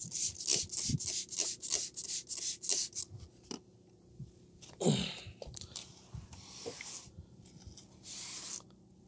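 Towel wiping back and forth over textured carbon-look vinyl wrap, about three strokes a second, stopping about three seconds in. On the ceramic-coated wrap the dirt comes off easily. A brief falling voice sound is heard near the middle.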